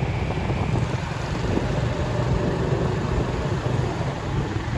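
Steady rumble of road traffic, with wind buffeting the microphone.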